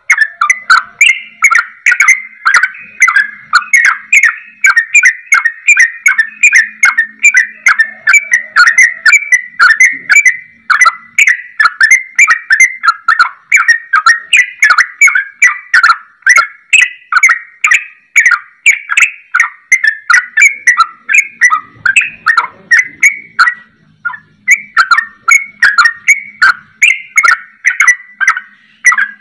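Yellow-vented bulbul (trucukan) singing a fast, almost unbroken string of short whistled notes, several a second, pausing once briefly. This is the rapid 'ropel' song that bird keepers prize, styled after the straw-headed bulbul (cucak rowo).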